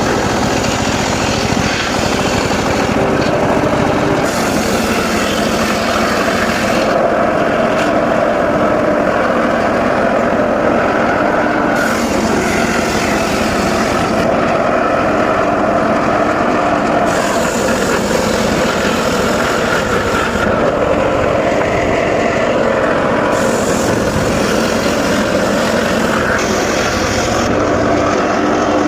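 Engine-driven mobile circular sawmill running steadily while sawing mahogany. A higher hiss comes and goes every few seconds as the blade enters and leaves the cut.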